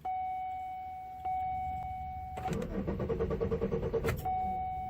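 2002 Chevy Malibu cranking on the starter for about a second and a half without catching, a no-start even with a jump boost. A steady electronic chime tone sounds before and after the cranking.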